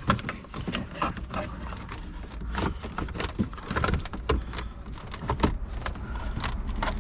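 Irregular clicks, taps and knocks of plastic dashboard trim being handled and worked loose by hand.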